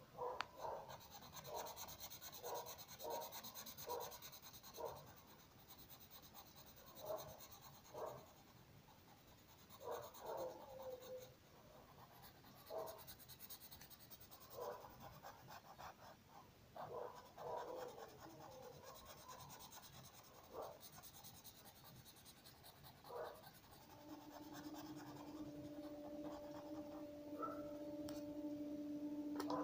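Felt-tip marker scribbling on paper in short, irregular strokes as an area is coloured in. A steady low hum comes in near the end.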